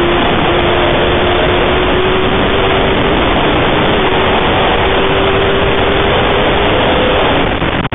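Aprilia RSV4 superbike's V4 engine running hard, heard from a camera mounted on the bike, under heavy wind rush. The engine note holds nearly steady with small rises and falls, then drops away near the end.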